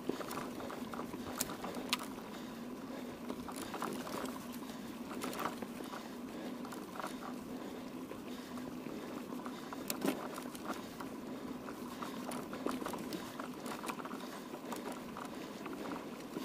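Mountain bike being ridden over rough ground: steady rolling tyre noise with frequent clicks and rattles from the bike.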